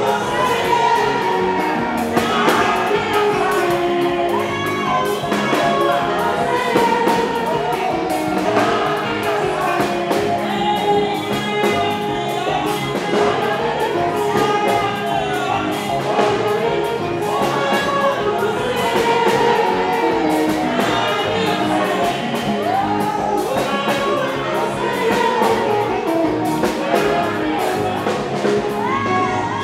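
Live gospel music: a woman singing the lead into a microphone over a band playing a steady beat.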